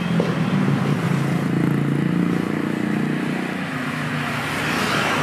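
Street traffic: a motor vehicle's engine running close by, its low hum strongest through the first few seconds, followed by a rising hiss near the end as traffic passes.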